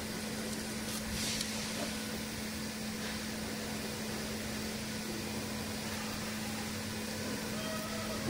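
Steady background hum of a factory workshop: one low even tone under a broad hiss, with a faint brief rustle about a second in.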